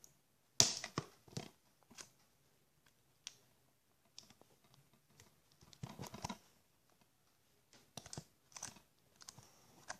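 Scissors working at a small box's packaging: scattered snips, crinkles and clicks, the sharpest about half a second in, with a cluster around six seconds and more near the end.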